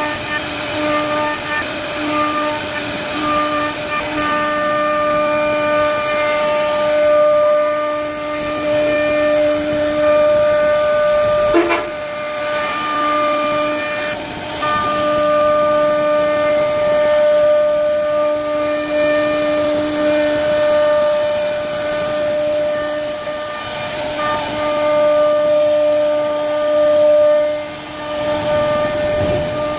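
CNC router spindle whining steadily as its bit carves a relief pattern into a wooden panel, with the noise of the cutter chipping through the wood underneath. There is a brief knock about twelve seconds in.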